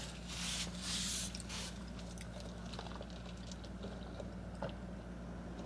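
A person chewing a bite of banana pepper close to the microphone, wet and squishy for the first second or so, then softer chewing with small clicks.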